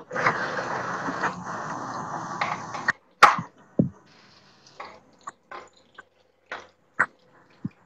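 Steady outdoor background noise coming through a video call cuts off abruptly about three seconds in. After that there are scattered light clinks and taps of a metal slotted spoon against a frying kadai and bowls.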